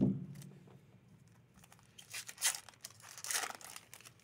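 Foil wrapper of a Magic: The Gathering booster pack crinkling and tearing as it is opened by hand, in two rustles about two and three and a half seconds in. A low thump comes right at the start.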